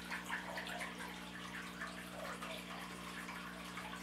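Room tone: a steady low electrical hum with a constant hiss underneath.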